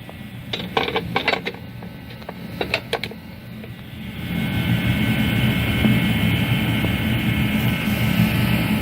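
Metal brackets and bolt hardware clinking and knocking in short clusters, then a steady mechanical whirring hum that comes in about four seconds in and holds.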